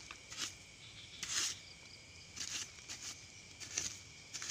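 Fingers scraping and digging through loose soil and leaf litter in a few short, irregular scrapes, with a faint steady high insect drone behind.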